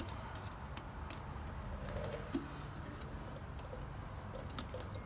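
Steady low background hum with a few faint, light clicks and taps scattered through, from handling small tools and parts at the motorcycle's rear brake caliper.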